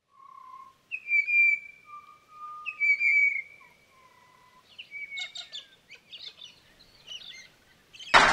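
Bird calls: a few clear whistled notes, held briefly with slight slides, then a run of shorter, busier chirping calls from about five seconds in. Applause cuts in suddenly right at the end.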